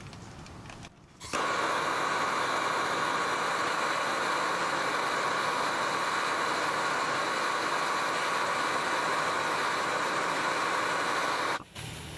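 Handheld gas torch burning with a steady hiss as it heats a seized caliper bracket bolt to free it. The hiss starts abruptly about a second in and cuts off just as abruptly near the end.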